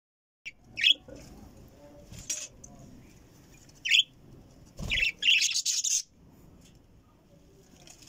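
Budgerigar chirping: several short, sharp chirps, with a denser run of chirps about five seconds in.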